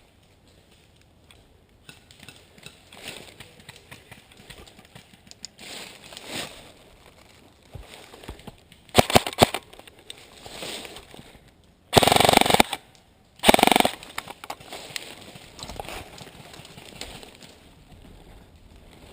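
Airsoft electric rifles firing: two quick shots about halfway through, then two loud rapid bursts a second apart, with faint rustling between them.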